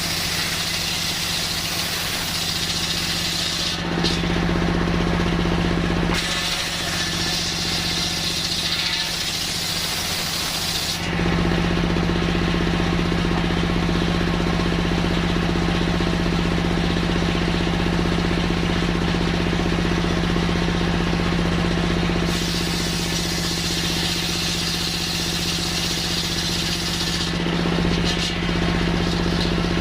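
Sawmill circular saw running with a steady machine hum, its blade cutting through coconut-palm wood in three stretches that add a loud high hiss: from the start to about four seconds in, again from about six to eleven seconds, and from about twenty-two to twenty-seven seconds.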